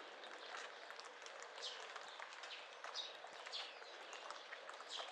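Steady rain hiss with small birds giving several short chirps that fall in pitch, about a second apart, and the faint steps of a walker.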